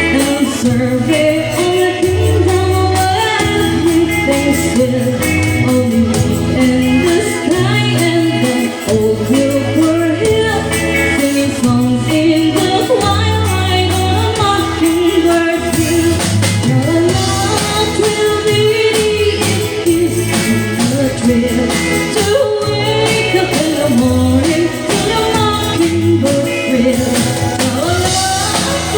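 A live band playing a waltz, with a singer carrying the melody over steady bass notes.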